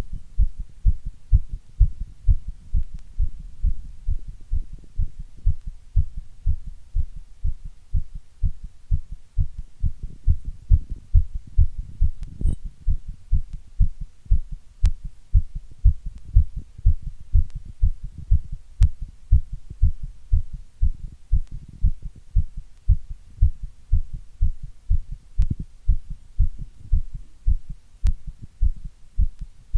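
Heartbeat beating in a steady, even rhythm of a little over one beat a second, the beats deep and low-pitched.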